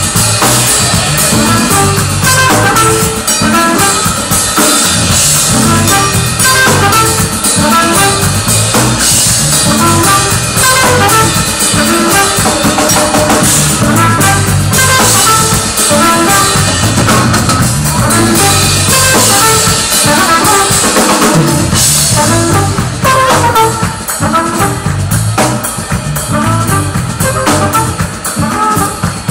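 Live jazz-soul band playing an instrumental passage, with drum kit and bass guitar driving a steady beat and keys over it, heard loud from the crowd in a club.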